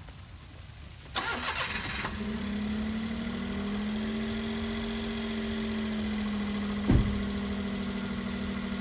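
Car engine being started: the starter cranks for about a second, the engine catches and settles into a steady idle. A single short knock sounds over the idle near the end.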